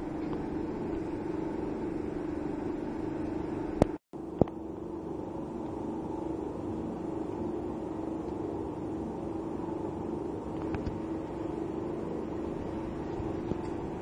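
Steady low mechanical hum. About four seconds in it is broken by two sharp bangs about half a second apart, with a moment of dead silence between them.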